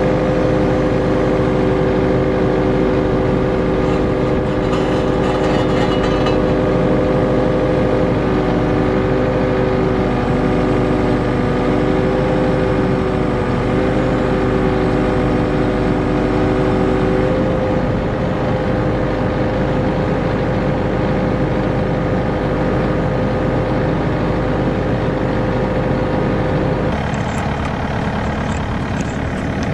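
Kubota KX080-3 excavator's diesel engine running steadily, with a steady whine over it. Near the end the whine stops and the engine sound changes.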